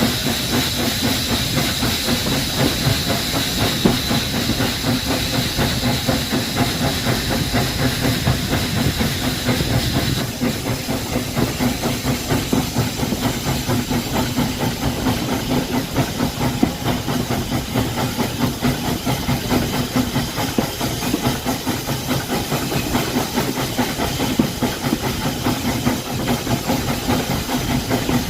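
Steady hiss of steam from a J94 Austerity saddle-tank steam locomotive standing with steam up, over a low steady hum; the higher part of the hiss drops away about ten seconds in.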